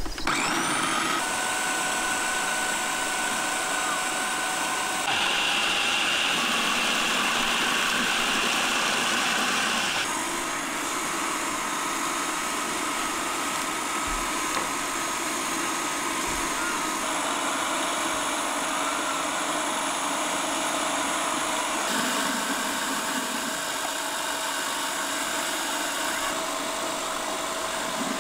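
Kenwood food processor's electric motor running steadily as it purées tomatoes, its whine shifting to a new pitch several times.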